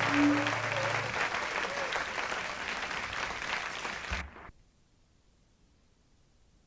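Live audience applauding at the end of a song, with the last guitar notes ringing in the first second. The applause cuts off abruptly about four seconds in, leaving near silence.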